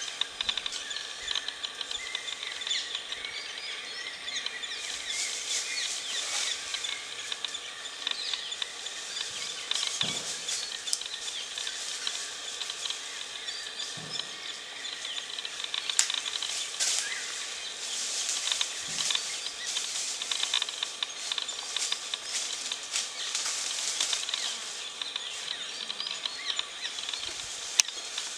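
Forest ambience: a steady high hiss with scattered bird chirps and a few soft thuds.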